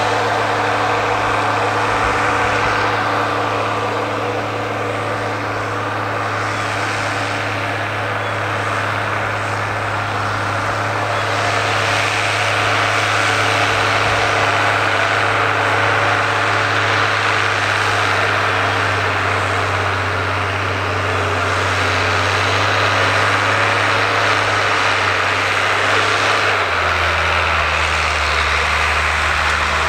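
A 135 hp Ford 9700 tractor's six-cylinder diesel engine running steadily under load while pulling a five-bottom moldboard plow through the soil. Near the end the engine note drops lower.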